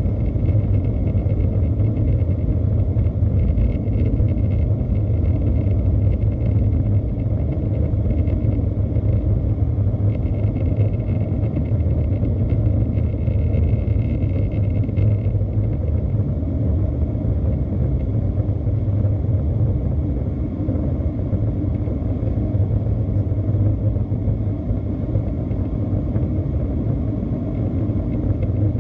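Steady low rumble of an Airbus A320-214's CFM56-5B turbofan engines and airflow, with a faint high whine that stops about halfway through.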